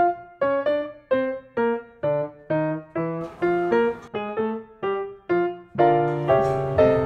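Background music on piano: a light, even run of single notes and chords, about two a second, each note ringing briefly and fading.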